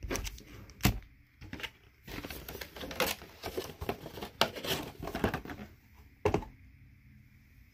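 Foil-wrapped trading card packs being handled and stacked on a table: a few knocks as packs are set down, and a stretch of wrapper crinkling in the middle.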